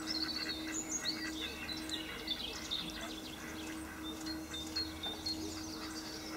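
Many short, high-pitched bird chirps and calls, busy and overlapping, over a steady low hum.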